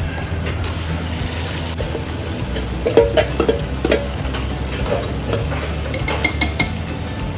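Steel ladle scraping marinated chicken out of a stainless steel bowl, with clusters of sharp metallic clinks about three seconds in and again near six seconds, over a steady low hum.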